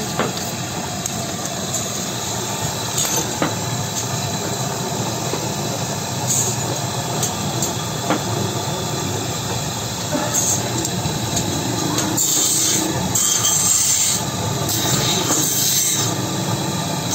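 Steady rumble and hiss of running workshop machinery, with a few light clicks, and brief high hissing in the last few seconds.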